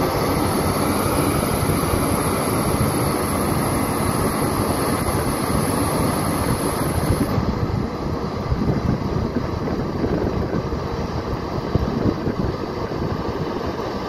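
Caterpillar 320D hydraulic excavator's C6.4 diesel engine running under load while the machine works its hydraulics loading soil into a dump truck. A high hiss cuts off about halfway through, and a few sharper knocks come in the second half.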